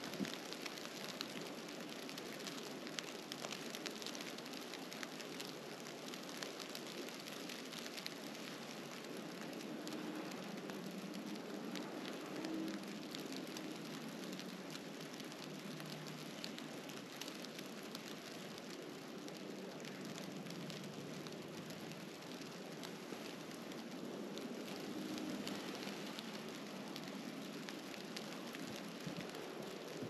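Snowstorm: a steady hiss with a dense, fine, irregular patter of falling snow.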